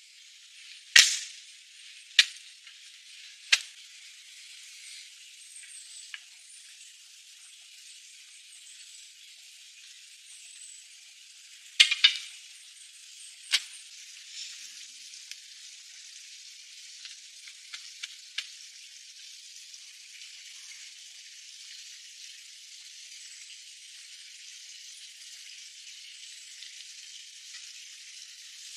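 Sharp knocks of hand-tool work at the base of upright log posts: three in the first few seconds, about a second apart, and two more around twelve and thirteen and a half seconds in. A few faint clicks and a steady high hiss lie under them, and the whole sound is thin, with no low end.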